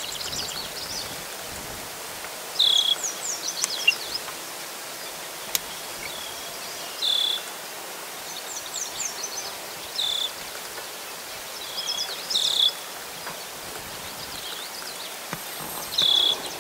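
High-pitched bird calls in a marsh, repeating every few seconds. Short clear notes at about the same pitch alternate with quick runs of short falling chirps, over a steady outdoor hiss.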